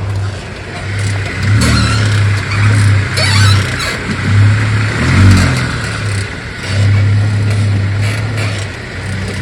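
Jeep moving with a loud squeaking from the front suspension underneath. The owner traces the squeak to a dry lower ball joint, and greasing it cures it.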